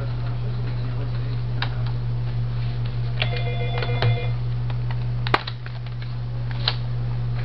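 Office desk telephone ringing once about three seconds in, an electronic ring of several pulsed tones, over a steady electrical hum. Scattered clicks of laptop keys and handling, with one sharp click about five seconds in.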